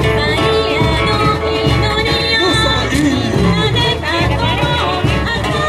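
Live samba band playing, with a steady pulse from the surdo bass drums under guitar and a singing voice.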